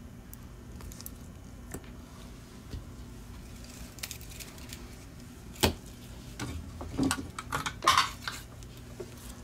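Small metal hand tools clinking and clattering as they are handled on a workbench: a few light ticks, a sharp clank a little past halfway, then a quick run of clinks and rattles near the end. A faint steady low hum runs underneath.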